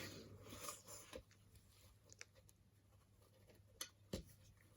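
Near silence, with faint scratching and a few light clicks as the Brodie helmet and its liner are handled.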